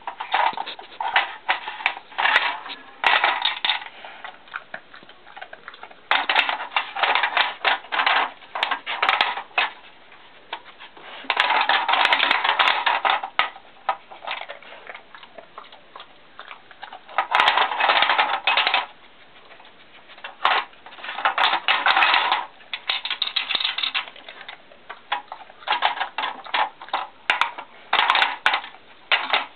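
Hard plastic clattering and rattling from a Dogit Mind Games dog puzzle board as a dog noses and pushes at its plastic cups. It comes in bursts of quick clicks one to three seconds long, with short pauses between.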